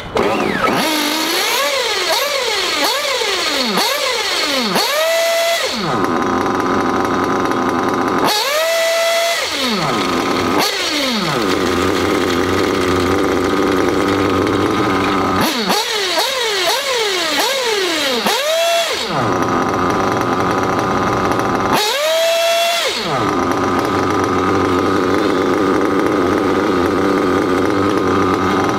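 Nitro RC buggy engine cycling through repeated rounds: quick up-and-down throttle blips, a high rev held for about a second, then several seconds of steady idle before the next hard pull. This is low-end (bottom-end) needle tuning: the blips clean the engine out, and each full-throttle pull after the idle tests whether it has loaded up.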